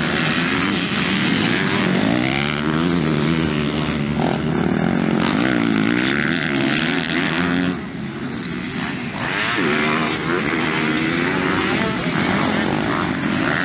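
Several motocross bikes racing on a dirt track, their engines revving up and down as riders work the throttle through corners. The sound drops briefly about eight seconds in.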